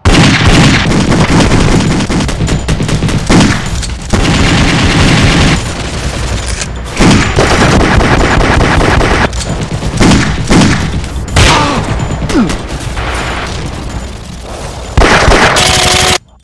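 Heavy gunfire sound effects: a dense, loud fusillade of overlapping rifle and automatic-weapon shots with a few brief lulls, cutting off suddenly just before the end.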